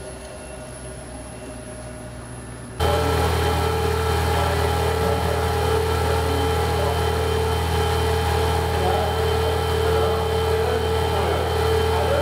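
Steady mechanical hum of concrete mixing and pumping machinery running. About three seconds in it jumps abruptly louder and carries on as a steady drone with a strong low hum.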